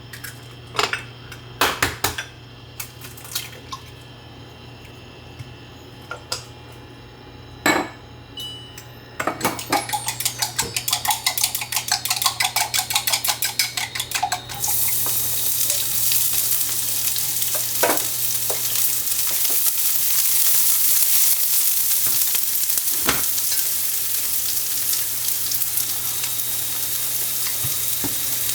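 Kitchen utensils knocking now and then, then a quick run of clattering strokes. About halfway through, food goes into a hot oiled pan and sizzles steadily while it is stir-fried, with a faint steady hum underneath.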